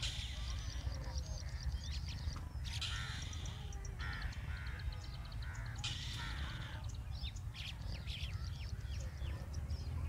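Several birds calling outdoors: quick high chirps throughout, and a run of about six repeated calls, roughly two a second, between two and six seconds in, over a steady low rumble.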